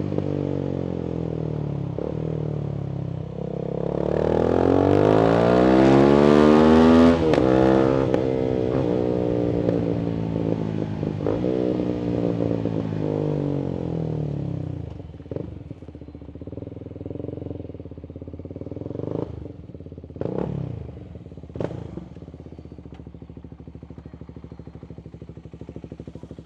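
Voge 300AC motorcycle's single-cylinder engine, reflashed for richer fuelling and breathing through a full-system aftermarket exhaust, running steadily, then accelerating with a rising pitch to its loudest about six to seven seconds in and falling in pitch as it slows. From about fifteen seconds it settles into quieter, low running, with a few sharp clicks around twenty seconds in.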